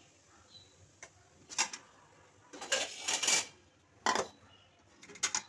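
Spatula scraping and clinking against a steel kadhai while stirring a thick curry gravy. It comes in a few short strokes, with a longer run of scrapes about halfway through.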